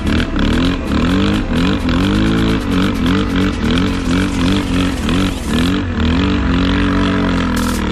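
Yamaha sport ATV engine revving up and down about twice a second as the throttle is worked on loose dune sand, then holding a steady pitch near the end, with wind noise on the microphone.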